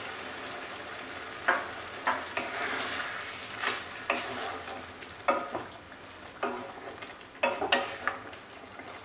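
Chicken in tomato gravy sizzling in a pan while a spatula stirs it, the hiss steady with about ten sharp knocks and scrapes of the spatula against the pan.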